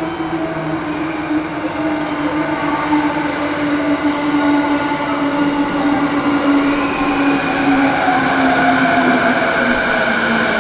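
Electric commuter train pulling into a station, its traction motors giving a steady whine that slowly falls in pitch as it brakes, over rolling noise that grows louder.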